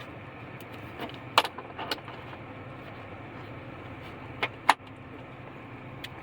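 A handful of sharp clicks and clacks from hand tools being handled, the loudest about four and a half seconds in, over a steady low hum.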